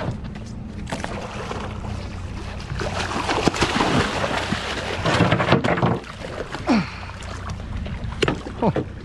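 A hooked tuna thrashing and splashing at the surface beside the boat's hull, loudest from about three to six seconds in, over the steady low hum of the boat's engine running.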